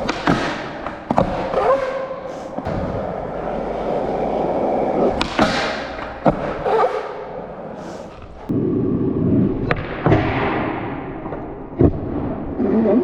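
Skateboard wheels rolling on pavement, broken by several sharp clacks and thuds of the board hitting the ground and the bench during trick attempts.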